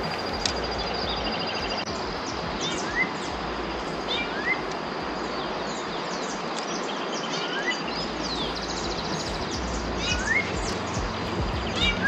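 Wild birds calling: a short rising whistle repeated about half a dozen times at uneven intervals, with a fast high trill near the start and again later, over a steady outdoor hiss.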